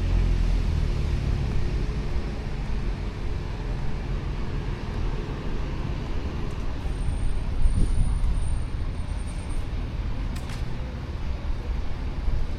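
Steady road-traffic rumble of a city street. A thin, faint high tone is held for a couple of seconds partway through, and there is one sharp click near the end.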